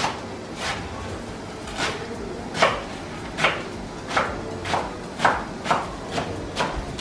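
Chef's knife chopping green onions and leafy greens on a wooden cutting board: single sharp knife strikes on the board, unevenly spaced at a little under two a second.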